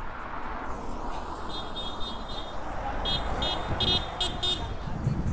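High-pitched vehicle horn: one held toot about a second and a half in, then five quick toots near the end, over a steady low rumble of road noise.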